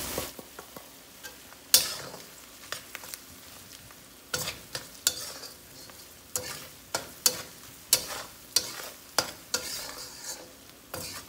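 Metal spatula scraping and knocking against a steel wok while stirring spice powders into onions frying in oil, over a light sizzle. The strokes come irregularly at first, then settle into a steady rhythm of about two a second.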